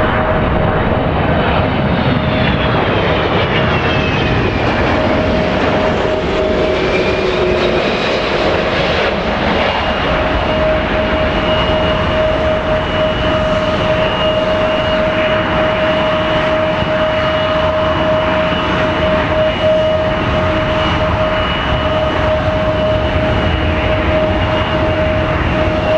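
Boeing 777-200 airliner's twin jet engines running loud and steady: a whine held over a broad roar, with a tone that falls in pitch a few seconds in.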